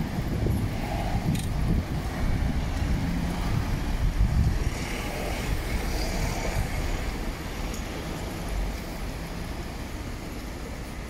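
City street traffic: a vehicle passing close by with a low rumble, loudest about four seconds in, then easing to a steadier, quieter traffic hum.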